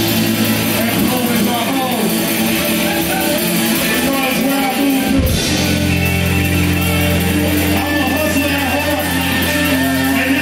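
Live rock band with distorted electric guitars playing loudly. About five seconds in the music cuts out for an instant, then comes back in as a heavy held chord.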